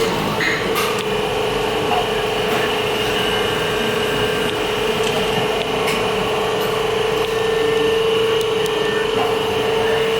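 Factory machinery running: a steady hum with a constant pitched whine, with a few faint clicks.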